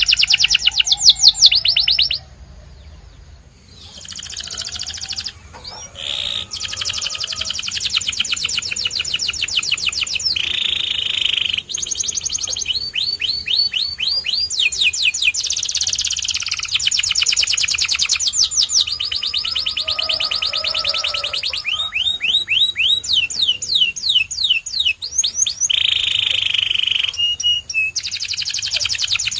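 Domestic canary singing a long song of fast trills, rapid runs of repeated sweeping notes changing from phrase to phrase, with a short lull about two seconds in.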